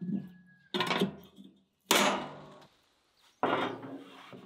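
Three sharp knocks, each dying away quickly, as a stainless steel grill grate is set down onto a charcoal grill.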